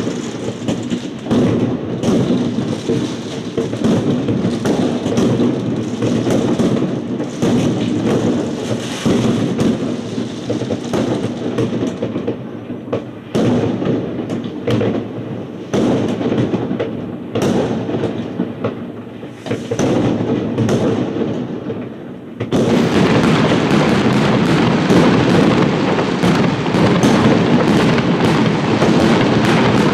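Aerial fireworks exploding in a rapid, continuous barrage of bangs and crackles. About three-quarters of the way through the barrage suddenly becomes denser and louder, a near-solid crackle.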